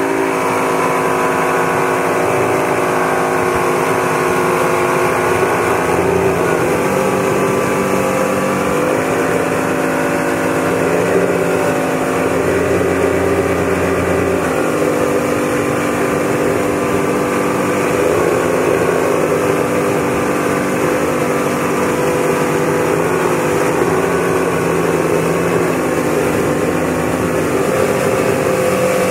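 Motorboat engine running steadily at towing speed, its pitch rising and falling slightly every few seconds, over the rush of the boat's wake.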